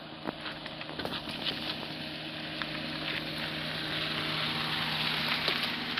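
Maruti 800's small three-cylinder petrol engine running at a steady note as the car drives toward the camera, its tyres crunching and popping over loose gravel and stones, growing louder as it nears.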